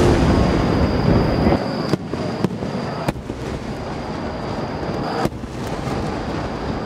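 Aerial firework shells bursting: a deep boom rumbling away over the first second and a half, then sharp cracks at about two, two and a half, three and five seconds in.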